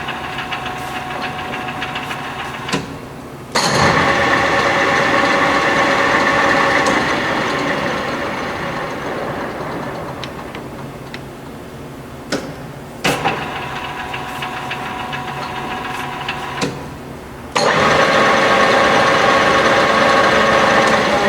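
LeBlond Regal servo shift engine lathe running under power, its headstock gearing whining steadily. A few sharp clicks, then the sound steps up sharply about 3.5 s in, slowly drops away, and steps up sharply again near the end.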